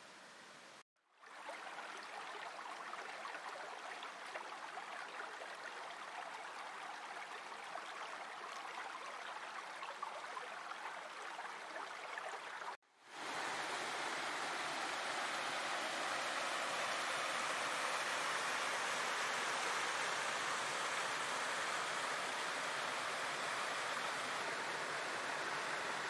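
Rushing water of a small woodland stream tumbling over rocks and a small waterfall, a steady even noise. It cuts out sharply twice, about a second in and again about halfway, and comes back louder and fuller after the second break.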